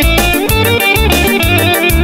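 Instrumental passage of a worship-band song: electric guitar playing over bass and drums with a steady beat.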